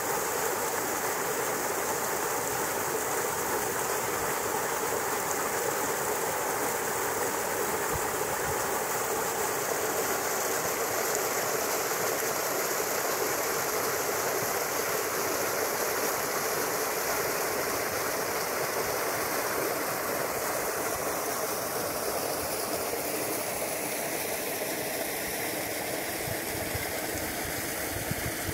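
Water gushing out of an outlet beneath a concrete headwall and splashing into a creek: a steady, unbroken rush.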